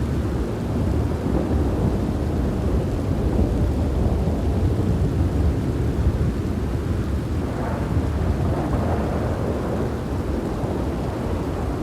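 Heavy rain with rolling thunder: a continuous low rumble under the steady hiss of rainfall, swelling slightly about a second in and holding.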